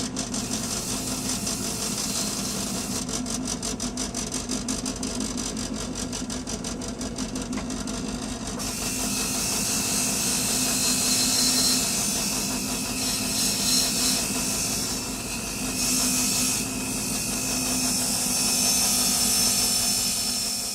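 Drill press spinning a nylon wheel, scrubbing rust off adjustable-wrench parts: a steady motor hum under a hissing, scrubbing noise that grows brighter and louder about eight seconds in.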